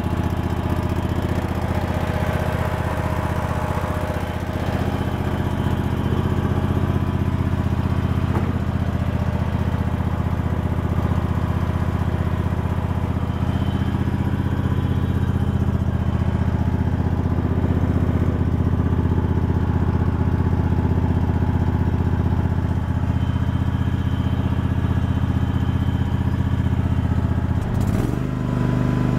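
Craftsman GT6000 garden tractor engine running at a steady speed, with a brief dip and change in its note near the end.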